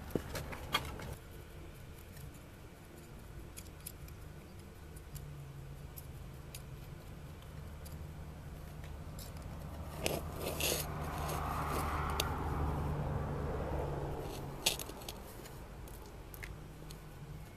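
Small red-handled scissors snipping and clicking at irregular moments while roots are trimmed. A rushing noise swells and fades in the middle, over a low steady hum.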